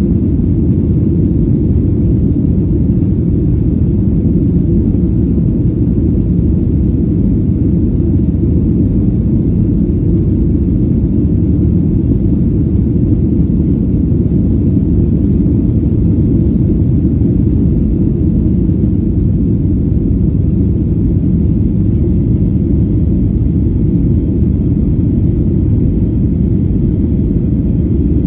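Cabin noise of a jet airliner in flight: a steady low rumble of the engines and rushing air, heard from a window seat beside the wing.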